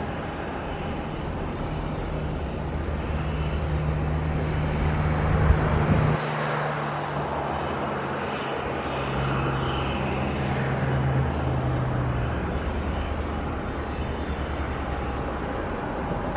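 Rolls-Royce Trent 7000 jet engines of an Airbus A330neo on final approach with landing gear down: a steady distant rumble that grows louder over the first six seconds, then eases slightly.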